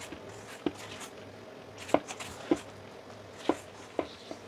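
Silicone spatula stirring flour into a wet dough mix in a stainless steel bowl, with a faint rustle and about six irregular sharp knocks of the spatula against the bowl.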